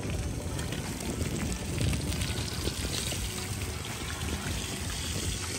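Pieces of fish frying in hot oil in a wok: a steady sizzle with fine crackling, over a low rumble.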